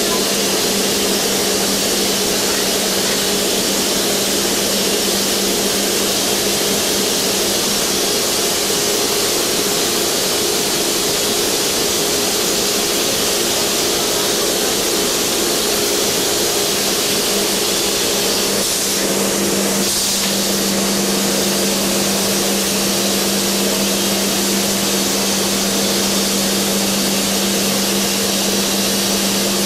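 Diaper and sanitary napkin production line machinery running, a steady loud hiss with a constant mechanical hum. The deepest hum drops out about eight seconds in and comes back about ten seconds later.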